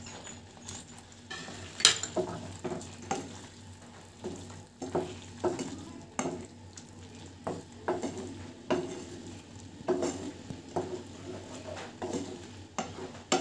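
Wooden spatula stirring paneer cubes through thick, sizzling masala gravy in a non-stick frying pan: a steady run of scraping strokes against the pan, a little more than one a second, with a sharper knock about two seconds in.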